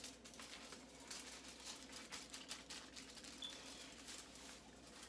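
Faint crinkling and clicking of an aluminium hair-colouring foil being folded and pinched closed over a section of hair.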